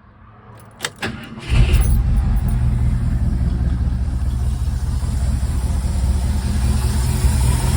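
Ford F-100 pickup's engine starting: two sharp clicks, a short crank, then it catches about a second and a half in and settles into a steady idle. The engine is running with a vacuum leak.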